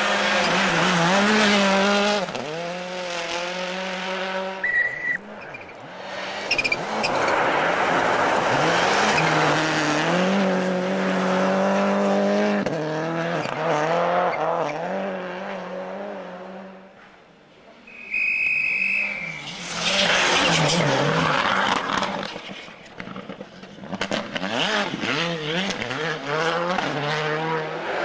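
Rally cars at full throttle on a snow stage, several passing one after another: engines revving high and dropping back again and again through gear changes. Near the middle the sound fades briefly before the next car comes through.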